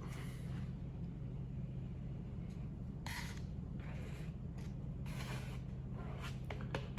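Squeegee dragged lightly over epoxy-wet fibreglass cloth, giving several short scraping swishes as the resin is spread and pressed into the patch. A steady low hum sits underneath.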